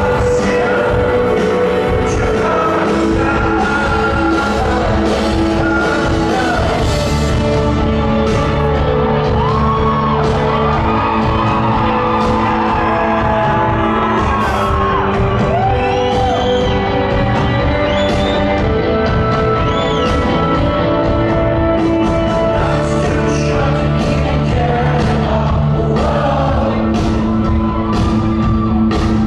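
A rock band playing live in a large concert hall, with a lead vocalist singing over a full band at a steady, loud level.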